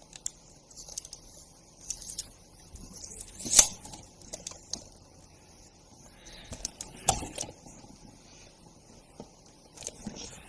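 A tape measure being handled: scattered clicks and rustling, with a sharp click about three and a half seconds in and another about seven seconds in.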